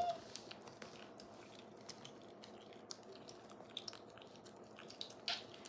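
Yorkshire terrier chewing and licking cake from its mouth: faint, scattered wet clicks and smacks, with one sharper click about five seconds in.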